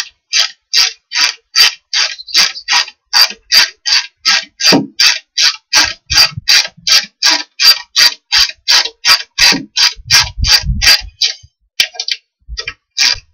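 Ratchet wrench working in quick, even strokes, about three a second, tightening a nut onto a threaded rod that holds a wooden wall to the floor. The strokes pause briefly near the end, with a few low knocks a little before.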